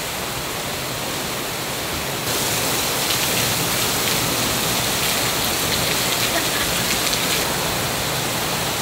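Heavy rain in a downpour, falling steadily, with water pouring off an overflowing roof edge. About two seconds in it gets louder.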